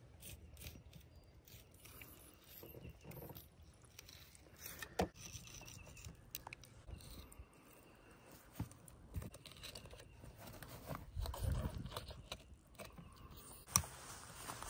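Faint knife work on a large catfish lying on a plastic cooler lid: quiet cutting and scraping with scattered sharp taps, the loudest about five seconds in and again near the end. A brief low rumble comes a little past the middle.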